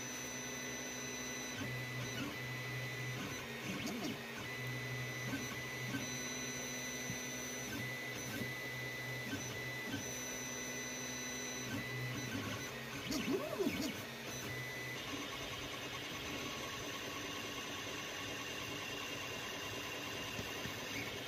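FDM 3D printer at work: its stepper motors whine in held tones that switch and change pitch as the print head moves, over the steady whir of the cooling fans. About thirteen seconds in there is a brief, louder whine that rises and falls as the head makes a quicker move.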